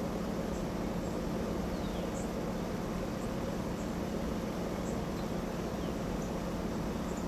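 Songbirds at sunrise giving short, faint, high chirps every second or so, with a few brief falling notes, over a steady low hum.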